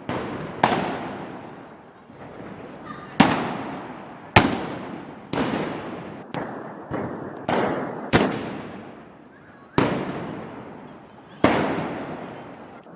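A series of about ten loud gunpowder bangs at irregular intervals, each with a long echoing decay.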